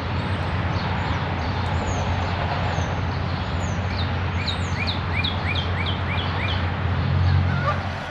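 Wind buffeting the microphone, a steady rumbling rush that swells in a gust near the end. Over it a bird sings: a few high chirps, then a quick run of about eight repeated down-slurred notes a little past the middle.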